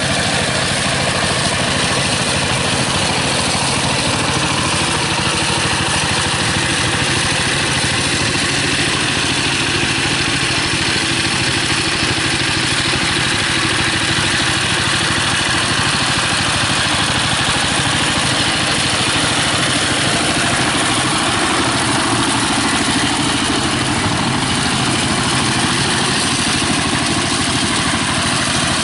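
Single-cylinder diesel engine of a two-wheel walking tractor (power tiller) running steadily under load, driving a rotary tiller through wet paddy mud.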